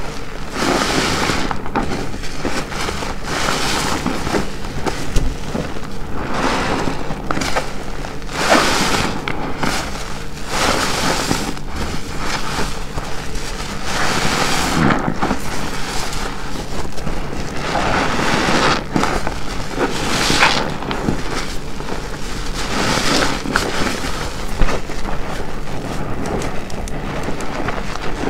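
A large car wash sponge soaked with detergent being squeezed over and over. Each squeeze gives a wet squelch with crackling foam, about one every second or two.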